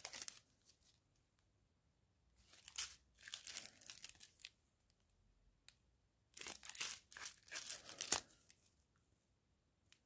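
Small clear plastic bags of round diamond-painting drills crinkling as they are picked up and handled, in three short spells with quiet between; faint.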